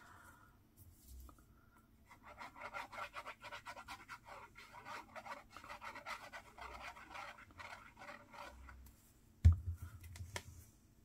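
Rapid scratchy strokes across paper or card for about six seconds, then a single thump about a second and a half before the end.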